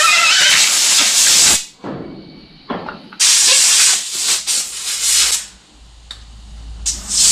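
Compressed air hissing from an air-hose nozzle in three long bursts, the last starting near the end, blown under a bike's handlebar grips to loosen them and slide them off the bar.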